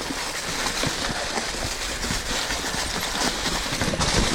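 Mountain bike rolling over leaf-littered singletrack: tyres crunching through dry leaves and sticks, with many small knocks and rattles from the bike over bumps.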